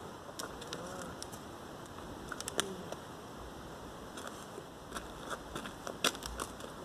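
Small clicks, ticks and rustles of a treeless saddle, its girth fittings and a lead rope being handled, over a steady outdoor background hiss; a couple of sharper clicks near the middle and near the end.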